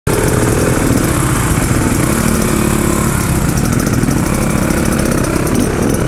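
Dirt bike engines idling steadily, one of them close by.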